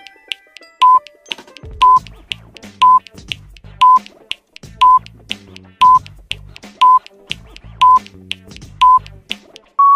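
Countdown timer sound effect: a short high beep once every second, ten in all, with lighter ticks between the beeps and background music underneath. A longer beep begins right at the end as the count reaches zero.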